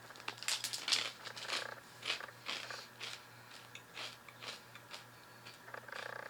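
Close-up biting and crunching of Asiago and cheddar cheese crisps, then chewing. A dense run of sharp crunches in the first second and a half gives way to single crunches about twice a second that thin out towards the end.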